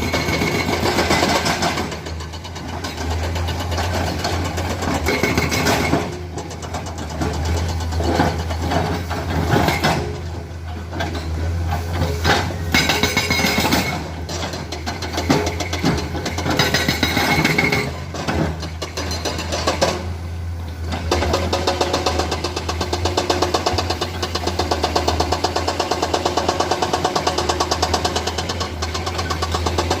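Diesel engines of Komatsu hydraulic excavators running under working load with a steady clatter. The sound rises and falls as the machines work, easing off briefly several times.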